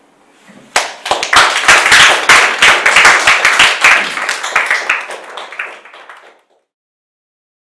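Audience applauding the end of a talk. The clapping starts about a second in, thins out toward the end and cuts off abruptly after about six seconds.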